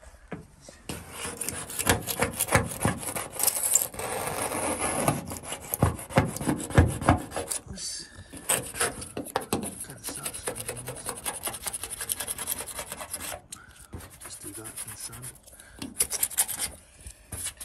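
Plastic razor-blade scraper scraping flaking white paint off a Land Rover Defender's aluminium roof panel, in many quick scratchy strokes with brief pauses near the end.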